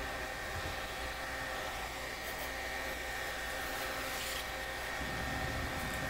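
12-volt DC exhaust fan running steadily in an RV absorption refrigerator's outside vent: an even rush of air with a faint high whine, its suction drawing hot air out from behind the fridge hard enough to hold a sheet of paper flat against the vent.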